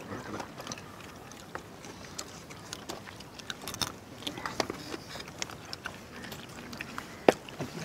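Cooked crab shells being cracked open by hand and eaten: scattered sharp cracks and clicks, with one louder snap near the end.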